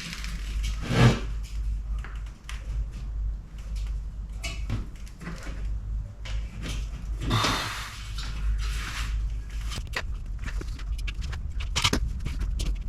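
Workshop handling noises from a steel motorcycle fender and tools being moved about: scattered light knocks and clatters, with louder scrapes about a second in and again around the middle, over a steady low hum.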